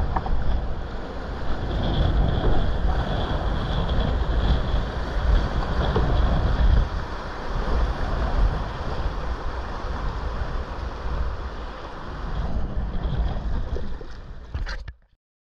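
Fast whitewater of a mountain river rushing around a kayak, with wind buffeting the camera microphone. The sound cuts off suddenly near the end.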